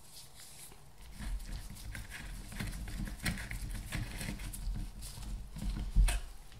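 A screwdriver working screws into the rear cover of a Valeo car alternator, giving irregular clicks and taps of the tool against the screws and casing. One louder knock comes near the end.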